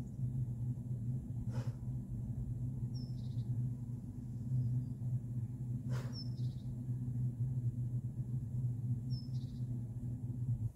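Three short high bird chirps, each dropping quickly in pitch, a few seconds apart, over a steady low hum that cuts off suddenly at the end; two faint clicks also sound.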